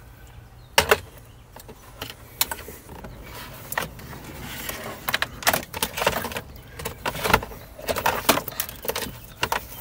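A bundle of RCA signal and speaker cables being pulled through behind a car's dashboard. The cables rustle, and irregular sharp clicks and knocks come as the plugs and cables hit the plastic trim.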